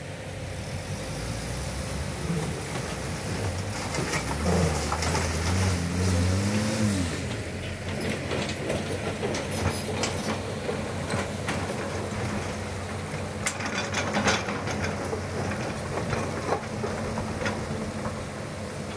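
Diesel engines of a light cargo truck and a tracked hydraulic excavator running together, one engine revving up and falling back between about four and seven seconds in. Scattered knocks and clatter of rocks run through it.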